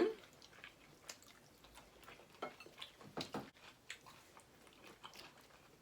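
Quiet chewing and mouth sounds of someone eating fried chicken, with scattered soft clicks and smacks.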